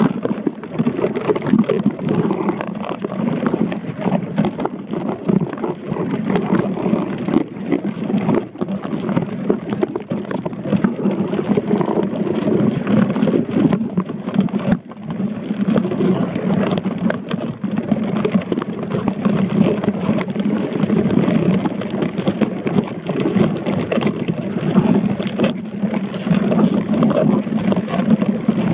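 Underwater noise heard through a submerged camera's housing: a steady, muffled rushing with dense crackling and scattered sharp clicks.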